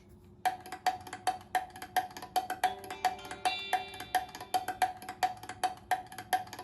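OnePlus 6T stock ringtone playing: a wood-block-like tapping pattern at about four strokes a second, starting about half a second in. Held melodic notes join it around the middle.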